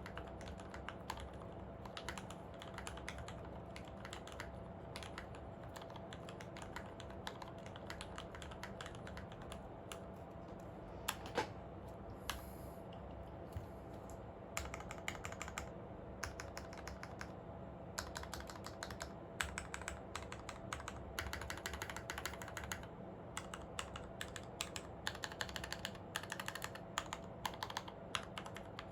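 Continuous typing on a Monstargears Ninja87 XO V2 mechanical keyboard: lubed and filmed Retooled Black linear switches with 65g springs on a brass plate, under ePBT keycaps, giving a steady stream of key strokes. A couple of louder strokes come about eleven seconds in, and the typing gets busier in the second half.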